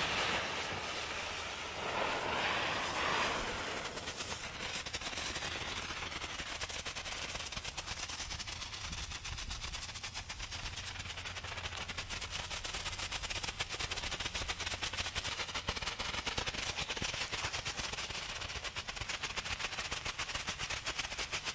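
Three strobe fireworks burning together: a hissing flare as they light, then a long run of rapid, fast-repeating pops and crackles from about four seconds in.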